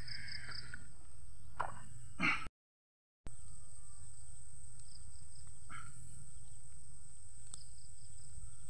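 Outdoor insects chirping, a steady high drone with a pulsing chirp above it, over a steady low rumble, with a few short rustles as the chili plants are handled. The sound cuts out completely for under a second about two and a half seconds in.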